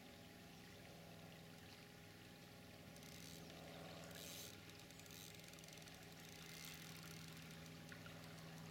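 Faint, steady flow of river water, close to silence, with a brief rise in hiss about four seconds in.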